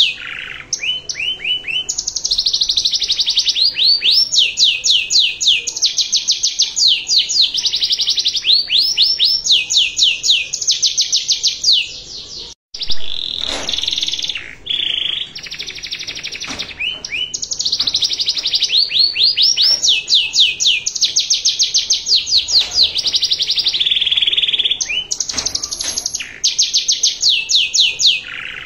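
Domestic canary singing a long song of fast trills: runs of rapidly repeated whistled notes that switch to a new pattern every second or two. There is a brief break near the middle.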